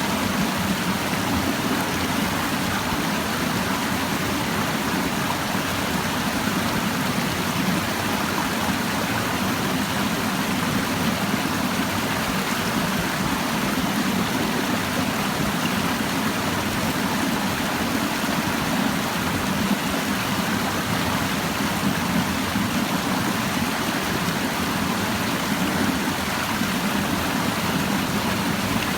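A clear mountain stream babbling steadily over rocks, with an even, unbroken rush of water.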